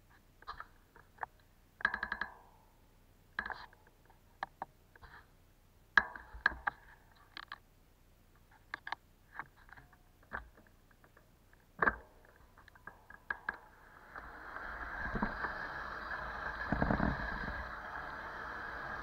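Scattered sharp clicks and knocks from handling a stopped bicycle and its camera. About fourteen seconds in, a steadily rising rush of wind and tyre noise begins as the bicycle starts rolling.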